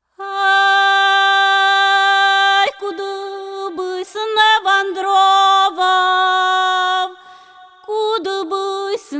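A solo female voice sings a Ukrainian folk song a cappella. It opens on a long held note of about two and a half seconds, then moves through ornamented phrases that bend and turn in pitch, with a short breath about seven seconds in before the line goes on.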